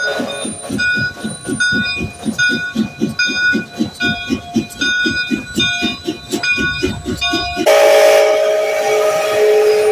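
Canadian Pacific 2816, a 4-6-4 Hudson steam locomotive, rolling slowly by with its exhaust chuffing in an even beat of about three a second, with short metallic ringing tones in between. About three-quarters of the way in, its steam whistle starts a long, loud, steady chord.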